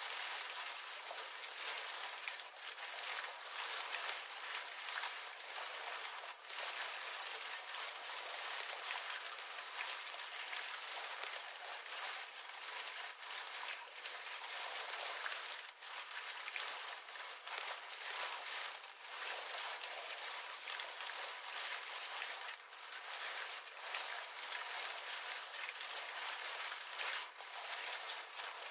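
Dense, continuous crackling of thawing pond ice sheets breaking up, recorded and processed by computer into a hiss-like texture with no low end, broken by brief gaps every few seconds.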